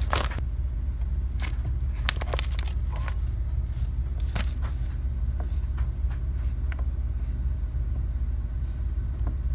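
A steady low rumble, with scattered clicks, knocks and scrapes as a stiff 6-gauge electrical cable is fished up through a drilled hole in wooden framing.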